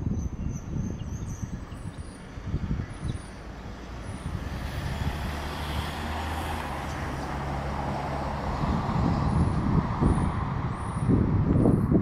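A motor vehicle passing on a road, its engine hum and tyre noise swelling in the middle and fading after about nine seconds, over low gusty rumbles of wind on the microphone. A few faint, short, high bird chirps come near the start and again near the end.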